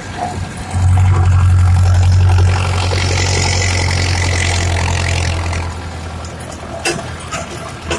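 Steyr 8073 tractor's diesel engine running with a steady low drone. It is loudest in the first couple of seconds and eases off in the second half, with a couple of sharp clicks near the end.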